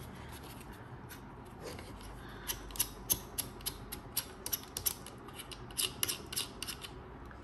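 Small hard plastic clicks and scraping as the cold-shoe foot of an Ulanzi VL-49 LED video light is slid and worked into a cold-shoe mount on a phone-holder bracket. A quiet rub at first, then from about halfway in, a quick, irregular run of ticks.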